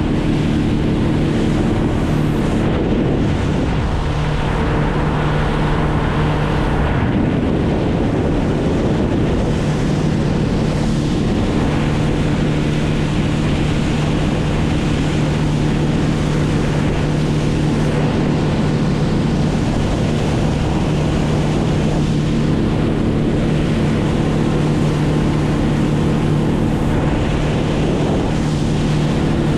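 A boat's engine running at a steady speed, with wind buffeting the microphone and the wash of water. The engine's tone fades briefly between about three and seven seconds in, then returns.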